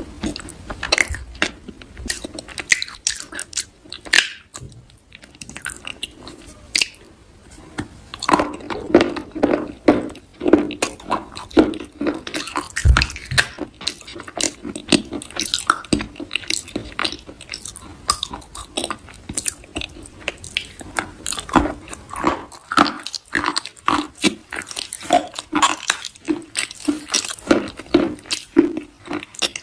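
Someone biting and chewing crunchy food: soft crunches, many short clicks in quick, irregular succession.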